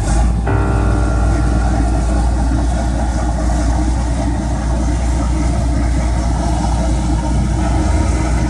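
Boat diesel engines running, a steady low rumble with a constant hum.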